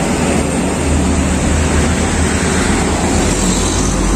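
Steady rushing roar of the gas burners firing under martabak pans, over a low rumble that settles into a steadier deep hum about three seconds in.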